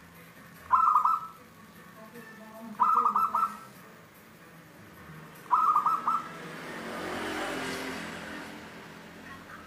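Caged zebra dove (perkutut) cooing: three short phrases of quick staccato coos, a couple of seconds apart, in the clear, carrying voice that perkutut keepers call "kristal tembus". Near the end a broad rushing noise swells and fades.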